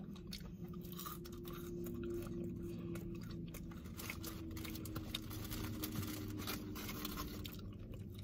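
People chewing bites of fried catfish sliders: soft wet chewing with crunches and small mouth clicks. A steady low hum runs underneath inside the car.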